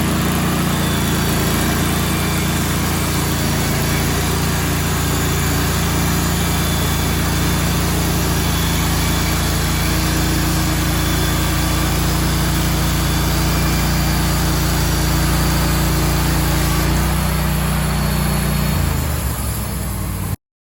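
An engine running steadily, its note shifting a little near the end before the sound cuts off abruptly.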